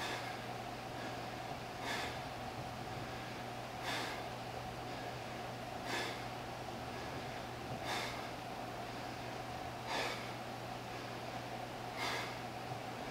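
A man breathing out sharply during push-ups, one short breath about every two seconds, over a steady low hum.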